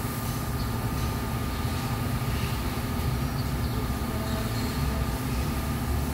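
A steady low mechanical rumble with a faint thin whine above it.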